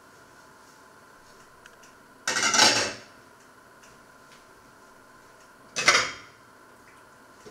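Two short clatters of ceramic plates, about two seconds in and again about six seconds in. The second is a plate set down on top of another plate.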